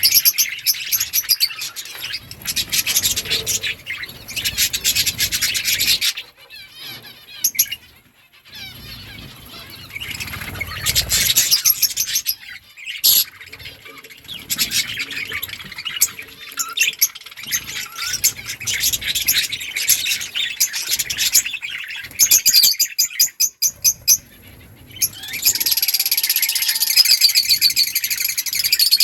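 Several budgerigars chirping and warbling in fast, busy chatter, in bursts with short lulls, growing denser and louder near the end.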